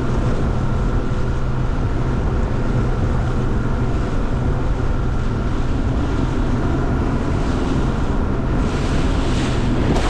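Boat running at speed on open water: an outboard motor's steady drone under heavy wind on the microphone and water rushing past the hull.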